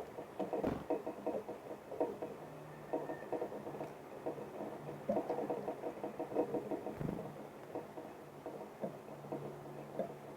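Small birds pecking and scratching at seed on a feeder close to the microphone: rapid, irregular clusters of light taps, with a couple of sharper knocks.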